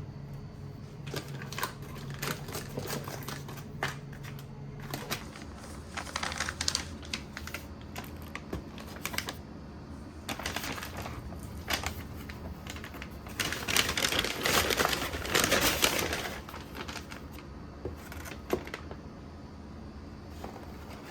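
Irregular tapping and clicking of keys on a computer keyboard, with a denser, louder run of clatter for about two seconds a little past halfway.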